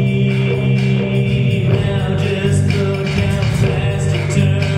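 Electronic music played live: layered held notes that shift every second or so, with a few short, high percussive hits.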